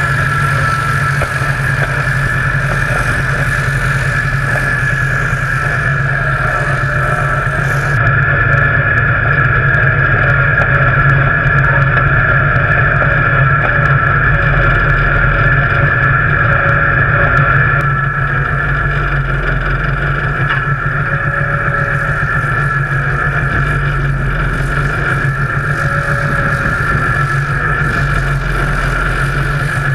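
Nuffield tractor engine running steadily as the tractor is driven across a field, a continuous drone that carries on through changes of camera.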